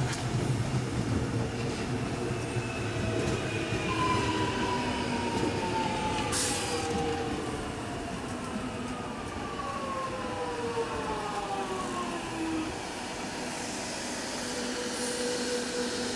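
Alstom X'trapolis electric train running past the platform, its traction motors whining in several tones that fall steadily in pitch as it slows, over the rumble of the wheels. A short hiss about six seconds in.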